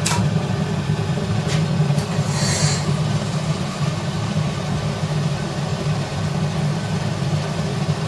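Gas-fired glass-studio furnace or glory hole running with a steady low rumble from its burner and blower, the burner set to a reducing flame. A couple of faint clicks and a short hiss come in the first three seconds.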